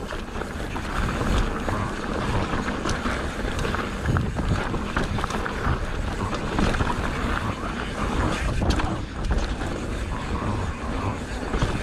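Mountain bike riding down a dirt singletrack: tyres rolling over loose dirt, a steady rushing noise, and frequent short clicks and rattles from the bike.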